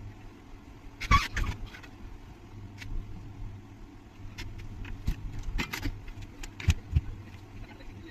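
Irregular clicks and light knocks of handling work at a repair bench, some in quick clusters, over a steady low hum.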